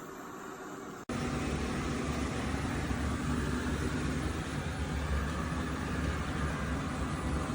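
eufy RoboVac 11S Max robot vacuum running: a steady motor and suction noise with a low hum. It breaks off abruptly about a second in and comes back louder.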